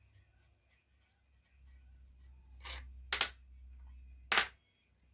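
Handling noise as parts are picked up and fitted: a low rumble of handling with three short sharp clicks or scrapes, the middle one loudest.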